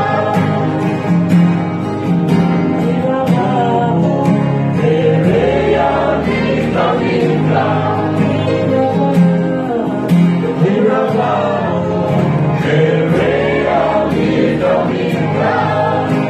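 Choir singing a song in several voices over instrumental backing with a steady bass and a regular beat.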